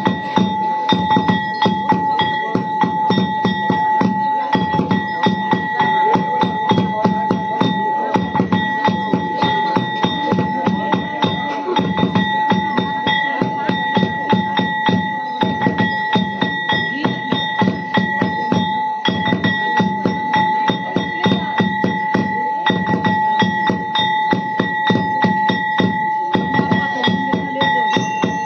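Fast, even drumming for a goddess possession dance, with a constant high metallic ringing held over the beats.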